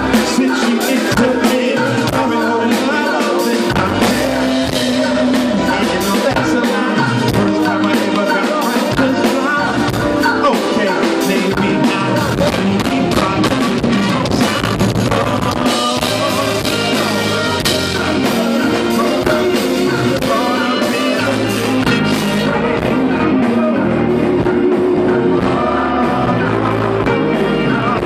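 Live band playing with a man singing lead into a microphone, over drum kit and horns.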